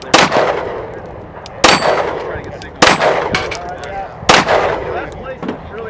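Four 9mm pistol shots from a Glock 17, spaced about a second to a second and a half apart, each trailing off in a long echo.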